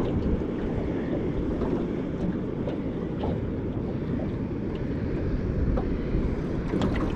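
Steady wind rumbling on the microphone over choppy sea water around the boat, with a few faint ticks.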